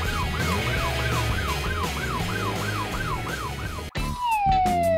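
An emergency-vehicle yelp siren sound effect, wailing rapidly up and down about three times a second over background music. It cuts off abruptly about four seconds in, and a single long downward-sliding tone begins.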